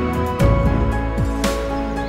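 Background music: sustained tones over a steady beat of deep, pitch-dropping drum hits and sharp high percussion.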